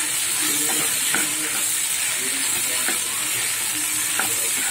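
A wooden spatula stirring penne pasta in a frying pan over the heat, with a steady sizzle and a few light taps and scrapes of the spatula against the pan.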